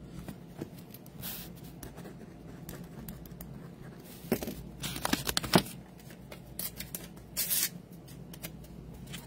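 A sticky note being written on with a pen and torn off its pad: scratchy rustling, a few sharp clicks around the middle, and a short rip near the end.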